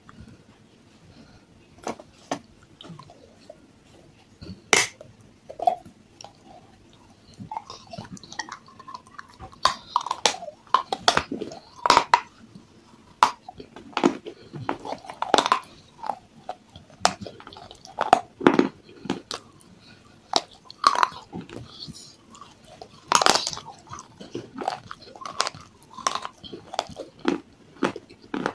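Crunching bites and chewing of pieces of a fired-clay cup coated in white paste: sharp, irregular crunches, a few at first, then coming thick and fast from about a third of the way in.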